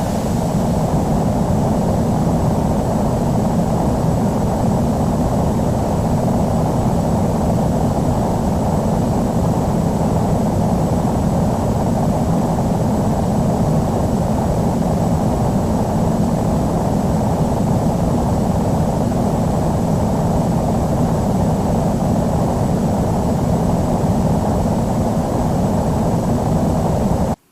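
Airbus A319 jet engines running with a steady rumble and a thin, high steady whine. The sound cuts off abruptly at the very end.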